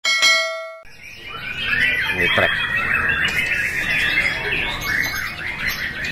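A short ringing chime that dies away, then many caged white-rumped shamas (murai batu) singing at once from about a second in: a dense, overlapping chorus of whistles, chirps and chatter.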